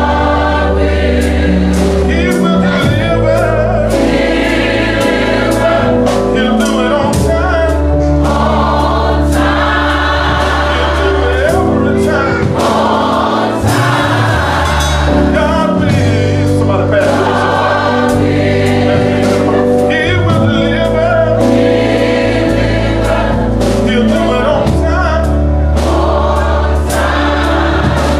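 Gospel choir singing in full voice with instrumental backing: held low bass notes that change every few seconds under a steady beat.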